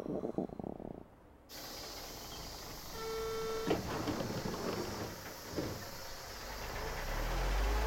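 A train's rattle dies away in the first second. Then a city bus at a stop: a short steady electronic chime about three seconds in, a sharp knock and a hiss of air as the doors work, and the engine's low rumble swelling near the end.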